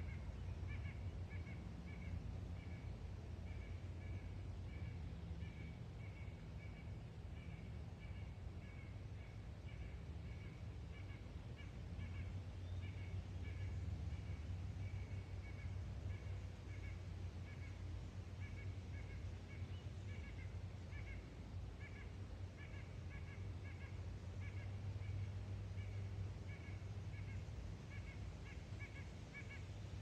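Woodland ambience: a steady low rumble with a small animal's short high chirp repeating about twice a second throughout.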